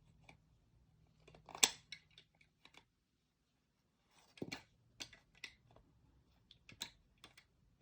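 Small plastic clicks and taps of LEGO pieces being handled: a few scattered knocks, the loudest about a second and a half in, and a quick cluster of taps later on.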